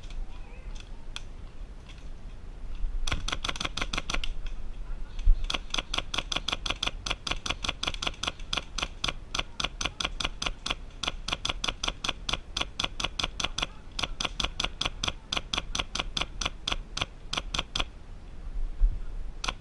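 Airsoft gun firing a long string of rapid shots, about seven a second, starting a few seconds in with a couple of short breaks and stopping near the end.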